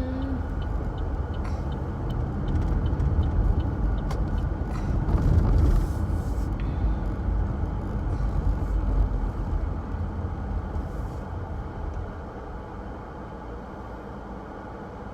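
Car road and engine rumble heard from inside the cabin while driving, easing off and getting quieter about twelve seconds in.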